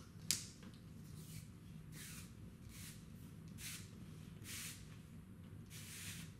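Plastic cable raceway cover being slid and pressed onto its base: a sharp click near the start, then faint scraping swishes about once a second as the lid is pushed along.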